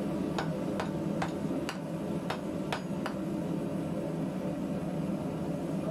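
Homemade wooden mallet striking a red-hot cube-twisted square bar on the anvil to straighten it: seven short knocks at about two a second, then a pause for the last few seconds. The wooden mallet is used so the blows don't mark the twist.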